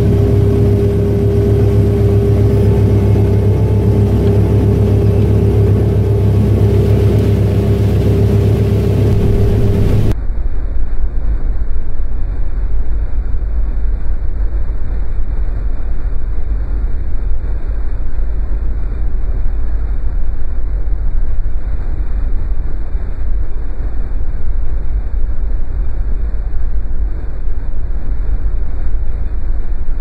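New Holland TR88 combine running while harvesting corn, heard from the cab: a loud, steady machine drone with a steady hum. About ten seconds in, the sound changes abruptly to a duller, heavier rumble with the treble gone.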